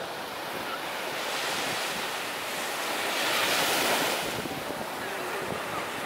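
Small Black Sea waves breaking and washing up a sandy shore, with wind buffeting the microphone. One wave washes in louder about three to four seconds in.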